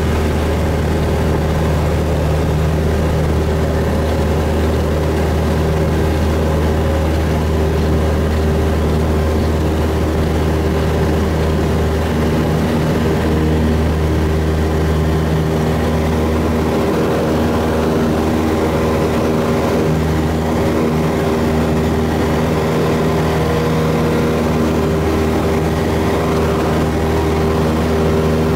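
Cessna 172's piston engine and propeller at full takeoff power, heard from inside the cockpit as a loud, steady drone made of several steady tones. The tone shifts slightly about twelve seconds in, as the plane lifts off and climbs.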